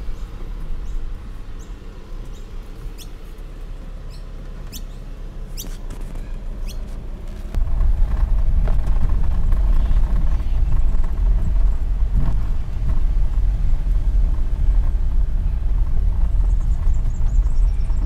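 A vehicle driving slowly along a dirt track, a steady low rumble of engine and tyres that gets markedly louder about eight seconds in. A few high bird chirps sound over it in the first half.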